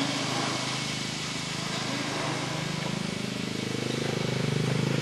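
An engine running, its pitch rising from about the middle onward as it speeds up.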